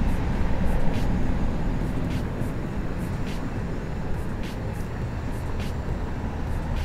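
Wind rumbling steadily on the microphone, with a few faint ticks scattered through it.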